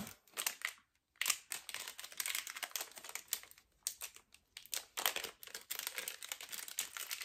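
Plastic packaging crinkling and rustling as it is handled: a short burst, a pause of about a second, then nearly continuous crinkling.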